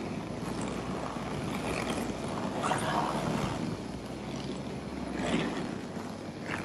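Snowmobile engine running steadily with a low hum, under a rushing noise like wind on the microphone.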